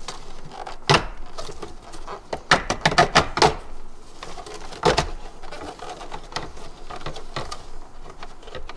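Plastic clicks and knocks of a GM S-truck's analog instrument cluster being wriggled out of its tight opening in the dash, with a quick run of clacks about three seconds in and a sharp knock near five seconds.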